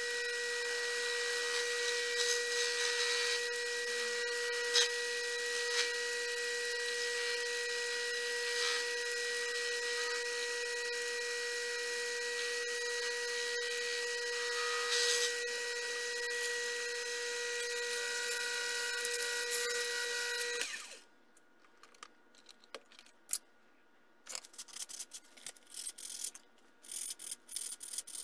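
Sherline mini lathe running with a steady high whine while the tool cuts a thin metal shaft, with the hiss of cutting; the motor switches off about 21 seconds in. After a short quiet, light metallic clicks and rubbing follow as the shaft is taken out of the four-jaw chuck.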